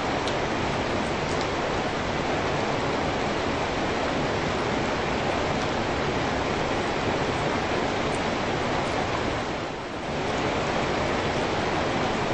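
Steady rain, an even hiss of falling water that dips briefly near the end.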